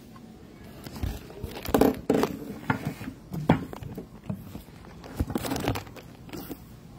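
Irregular knocks, light clatters and rustling as dishes and a pot are handled on a glass table.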